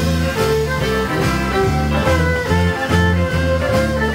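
Western swing band music with a fiddle taking a solo over bass and guitar, in a steady swing beat.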